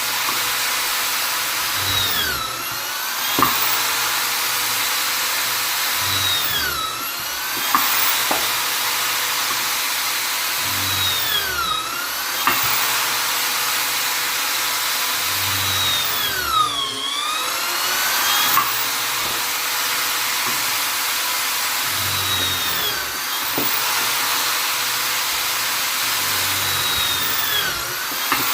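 Vonder electric drill/driver motor running with a steady whine. Every few seconds the pitch sags briefly and climbs back, with an occasional short click.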